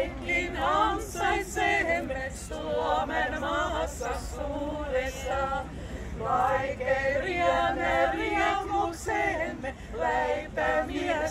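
Small ensemble of women singing a folk song a cappella, several female voices together.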